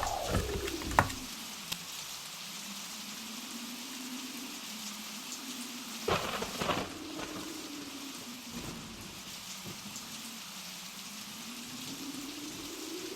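Blizzard wind howling, its pitch slowly rising and falling over a steady hiss. There is a cluster of sharp knocks right at the start and again about six seconds in.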